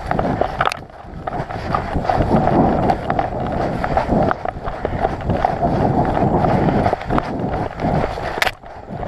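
Footsteps of a person running over rough ground, with gear rustling. There is a sharp click just under a second in and another near the end.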